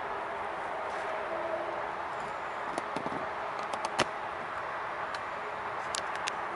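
PVC faux-leather jacket burning in open flame: a steady rush of fire with sharp crackles and pops. The loudest pop comes about four seconds in, and there is a quick cluster of pops near the end.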